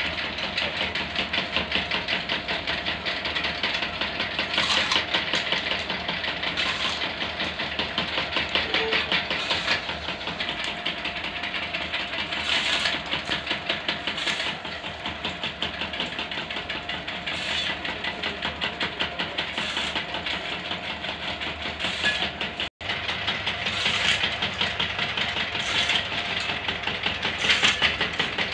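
Bamboo broom-stick making machine running: its electric motor drives belt-driven rubber rollers with a fast, steady rattle. The sound swells louder every few seconds as bamboo strips are fed through and split into thin sticks.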